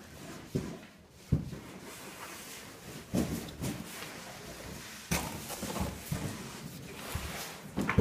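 Cardboard stage props being shifted and bumped by hand: a series of irregular knocks and thumps with some scraping.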